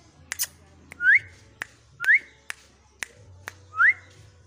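Three short rising whistles, spaced a second or two apart, with sharp clicks between them: a keeper's recall whistle calling a hand-tame pigeon back to the hand.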